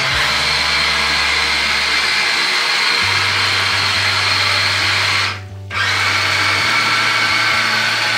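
Small electric motor of an RC model car running under throttle, a steady high whine. It cuts out briefly about five and a half seconds in, then picks up again.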